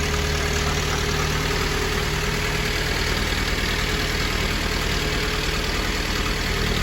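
Restored Jeep's engine idling steadily just after starting.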